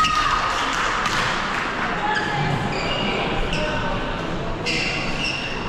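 Badminton players' court shoes squeaking several times on the sports-hall floor during a rally, with a steady background of voices from the surrounding courts.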